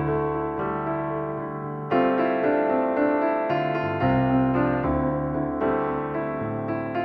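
Background piano music: slow sustained chords, with new notes struck about every second or two.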